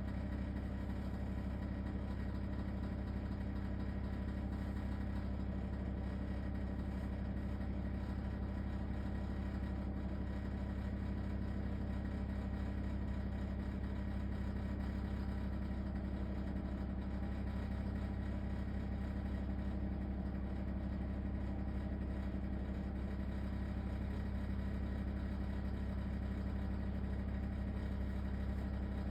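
LG ThinQ WSES4728F appliance running with a steady, unchanging rattling drone, a fault noise the owner calls horrible.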